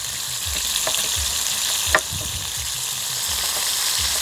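Hot oil sizzling steadily in a frying pan as pieces of pufferfish fry, with two sharp knife clicks on a cutting board, about one second apart, in the first two seconds.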